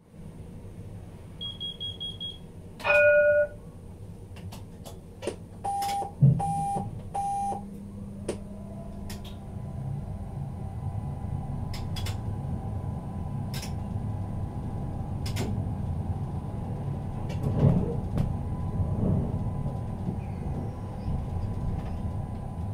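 Tram setting off, heard from on board. First comes a quick run of high beeps, then one loud signal tone, then three loud beeps about a second apart. After that the traction drive starts a low hum and the wheels rumble on the rails as the tram gathers speed, with a few clicks over the track.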